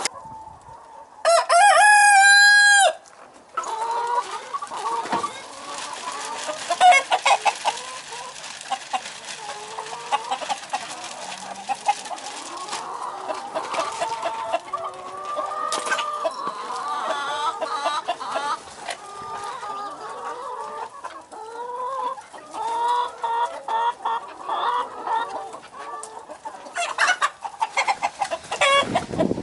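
A rooster crows once, about a second in, a crow of about a second and a half and the loudest sound. After it a flock of young Easter Egger chickens clucks and calls steadily, many birds overlapping.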